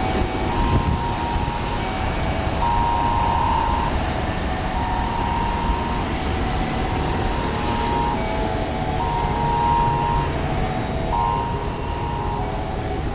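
Steady low rumble of jet aircraft engines at an airport, over a slow melody of clear tones stepping between a few notes.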